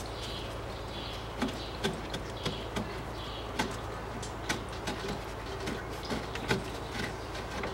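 Scattered light clicks and taps of gloved hands working the plastic latches of a diesel fuel filter's holder and pushing the filter up out of its mount, over a steady low hum.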